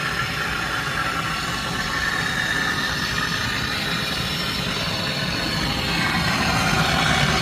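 Torch flame burning steadily, heating a rusted, seized bolt: an even rushing noise that gets a little louder about six seconds in.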